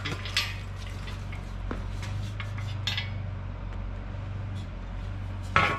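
A chrome steel muffler being handled, giving light metallic clinks and rustling over a steady low hum. Near the end comes a sharp knock as it strikes and tips over a drink can.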